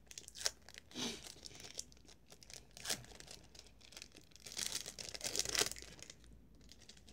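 Thin plastic film wrapper of an individually wrapped cheese slice being peeled open and crinkled by hand, in short rustles that grow busiest and loudest a little past halfway.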